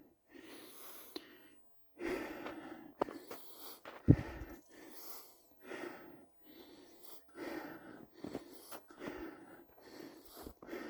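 Footsteps crunching through snow, a short crunch about twice a second at a walking pace with small gaps between steps.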